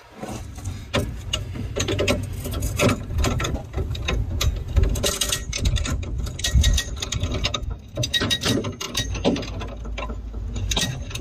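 Hand-operated ratchet clicking in quick, uneven strokes as a pull is tensioned against a car's damaged front end, with a low rumble underneath.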